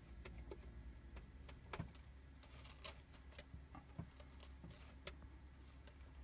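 Faint low rumble of a truck's engine heard inside the cab, with irregular light clicks and rattles from the cab.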